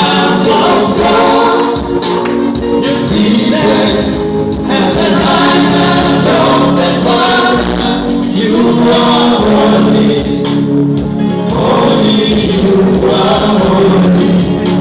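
Gospel worship singing: a group of voices singing together over a steady accompaniment.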